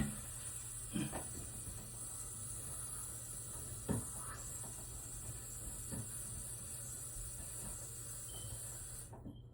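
Steady water hiss from a faulty toilet fill valve that cuts off suddenly about nine seconds in as the supply shutoff valve is closed. A few faint knocks sound along the way.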